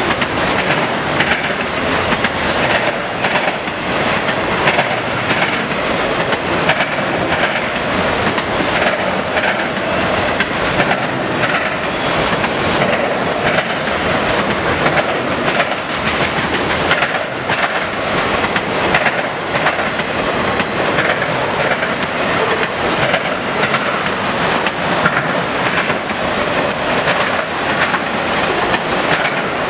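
Autorack cars of a freight train rolling past at speed, making a loud, steady noise with a continuous clatter of steel wheels over the rail joints and the diamond crossing.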